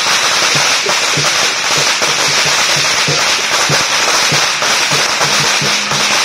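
A long string of firecrackers crackling and popping continuously, with a lion dance drum beating steadily underneath, about three beats a second.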